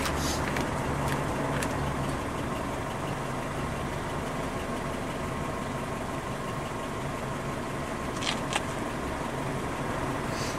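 Steady low hum of an idling engine, with a couple of light clicks about eight seconds in.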